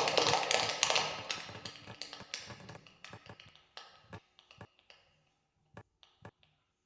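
Large audience applause dying away: the dense clapping thins out over about three seconds to a few scattered claps, then single last claps near the end.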